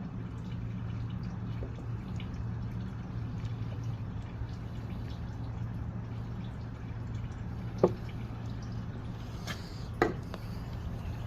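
Motor oil being poured into a new oil filter to pre-fill it, a steady liquid trickle over a low hum. Two short knocks come about 8 and 10 seconds in.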